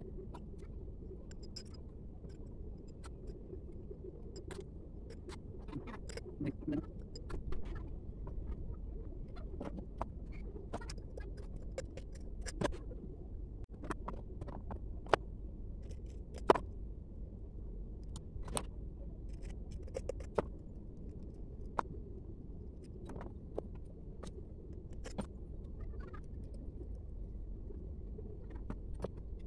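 Scattered small clicks and taps of a glass terrarium bottle being handled and a tool working inside it, irregular and a few seconds apart, over a steady low rumble.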